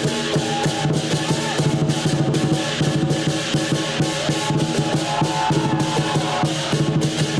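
Lion dance percussion: a big Chinese drum with gongs and cymbals beating out a fast, continuous rhythm, the gongs ringing over the drum strokes.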